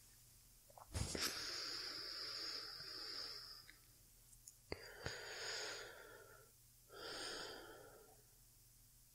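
A woman's slow, sleepy breathing close to the microphone: three breaths, the first a long one of nearly three seconds that begins with a small click.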